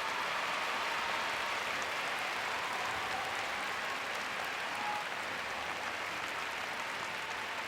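Large arena crowd applauding, a steady, dense clapping that keeps up without a break.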